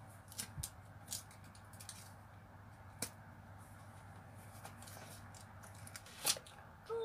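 Cardboard smartphone box being handled and opened: scattered light taps and scrapes of the card, with a louder rustle near the end as the lid is pulled off.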